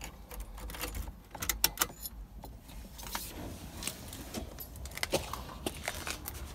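A bunch of car keys jangling, with a series of sharp clicks and knocks, as the key is put into the ignition.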